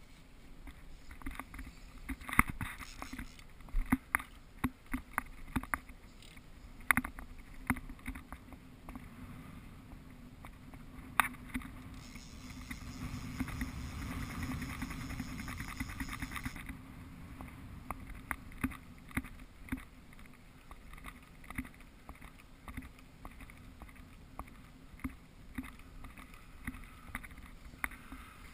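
Small waves slapping and knocking against the hull of a small skiff, a run of irregular sharp knocks and clicks over a low rumble. For a few seconds in the middle a louder steady rush of noise rises and then cuts off.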